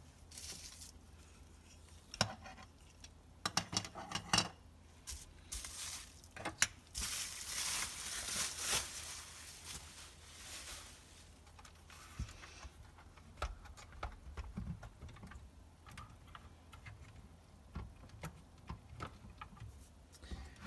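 Bubble wrap rustling and crinkling as it is pulled out of a box, with light clicks and taps of plastic LEGO pieces. The rustling is loudest for a few seconds around the middle.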